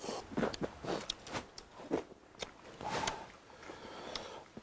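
Close-up eating sounds: chewing and biting on a mouthful of rice and fish, mixed with sharp, irregular clicks of chopsticks.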